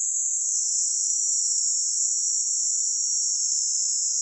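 Insects in the trees shrilling without a break: a steady, high-pitched drone that holds the same level throughout.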